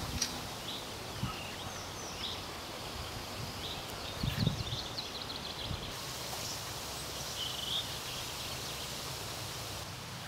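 Outdoor ambience: a steady rustle of leaves in the breeze, with small birds chirping now and then. There is a thump about four and a half seconds in.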